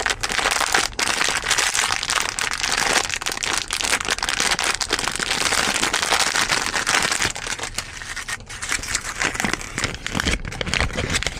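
Crinkling and crackling of a toy pack's plastic wrapper as it is torn open and handled, thinning out near the end.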